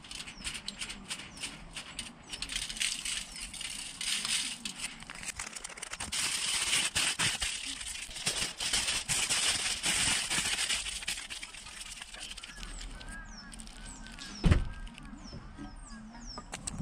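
Aluminium foil crinkling and rustling as it is folded and crumpled by hand around a tomato, busiest in the middle. A single sharp knock a couple of seconds before the end.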